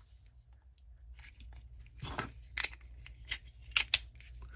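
Handling noise from a Ruby .32 ACP semi-automatic pistol being turned over and worked in the hands: a soft rub about two seconds in, then several small, sharp metal clicks.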